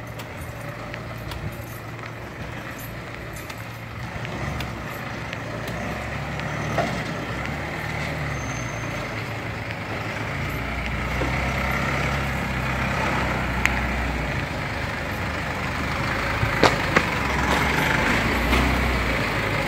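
Pickup truck's engine running as it drives slowly up and pulls alongside, growing louder as it approaches. There are a few light clicks near the end.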